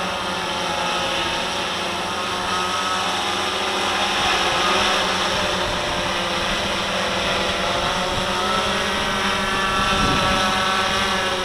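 RC Timer S1100 octacopter hovering, its eight electric motors and propellers making a steady buzzing drone. The pitch wavers and shifts up and down as the motor speeds change.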